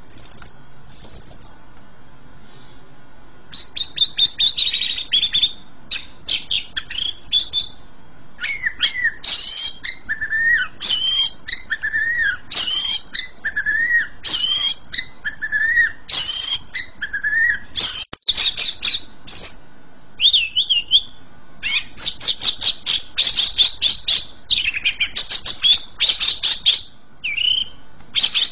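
Caged green leafbird (cucak ijo) singing vigorously. After a few brief notes it breaks into a long, varied song of rapid chirps, whistled phrases and sliding notes, packed into denser runs in the second half.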